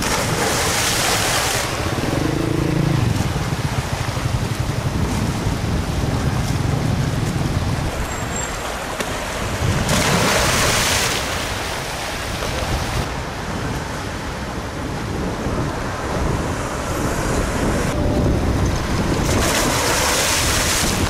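A swimmer diving into a fast-flowing irrigation canal: three splashes, at the start, about ten seconds in and near the end, over a steady rush of water and wind.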